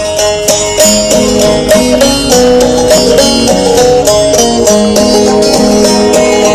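Instrumental folk music on plucked string instruments: a quick run of picked notes, with a lower accompanying line coming in about a second in.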